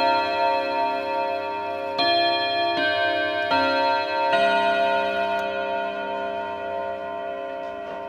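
ODO 57 antique pendulum clock chiming on its 101 gong-rod block: the hammers strike the rods in a tune, four more notes about three-quarters of a second apart in the first half. The last notes then ring on and slowly fade. The tone is very solid, half deep and half clear.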